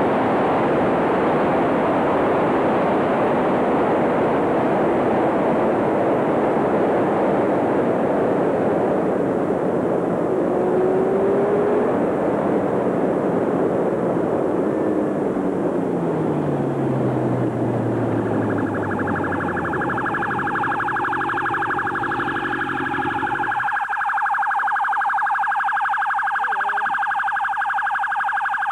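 Motorcycle riding fast with heavy wind rush, its engine dropping in pitch as it slows. A police siren starts up about two-thirds of the way in and keeps going, while the rushing engine and wind noise falls away suddenly near the end.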